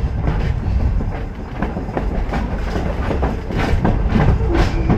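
Wooden railroad passenger coach rolling along the track, heard through its open window: a steady low rumble with irregular clicks and knocks from the wheels on the rails and the car rattling.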